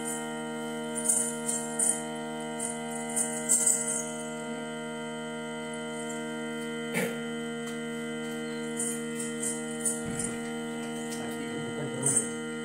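A steady, unchanging musical drone of several held notes, with brief scattered jingles of small bells, loudest a second or two in and again near the end.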